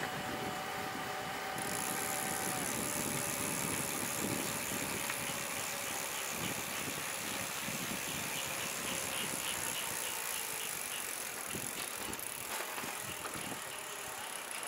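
Bicycle riding along: steady tyre and road noise, with a thin high whine that sets in about two seconds in.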